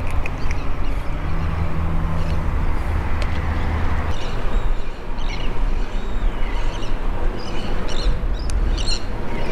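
Steady wind rumbling on the microphone. In the last two seconds a bird calls in a quick series of short, high chirps.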